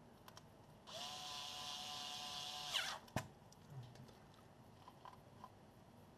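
Small electric screwdriver motor spinning for about two seconds, its pitch falling as it stops, followed by a sharp click. This fits driving a heatsink screw.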